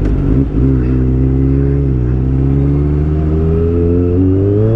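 Kawasaki ZX25R's 250 cc inline-four engine running through a loud aftermarket exhaust while riding. The engine note dips briefly about half a second in and again around two seconds in, then climbs steadily near the end as it accelerates.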